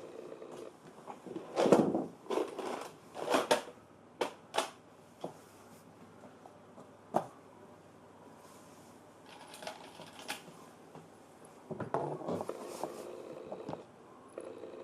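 Clicks, taps and scrapes of small tools and parts being handled while a DJI Pocket 2 is taken apart for a battery swap, in irregular clusters with a few sharper knocks about two and twelve seconds in.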